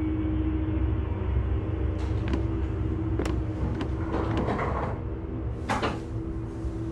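A low steady rumble with a constant hum, broken by a few sharp knocks and clicks and a brief scraping rattle about four seconds in.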